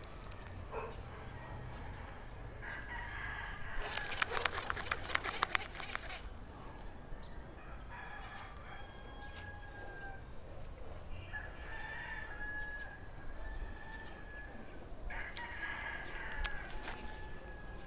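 Rooster crowing several times, one long crow after another. A burst of rapid clicking runs for about two seconds, starting about four seconds in.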